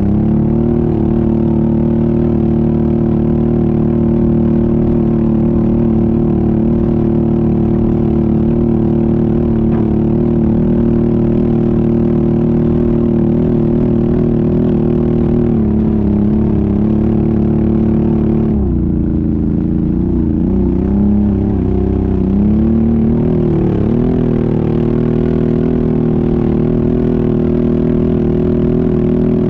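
ATV engine running under steady load on a climb. Its revs drop and waver for a few seconds a little past the middle, then settle back to a steady pitch.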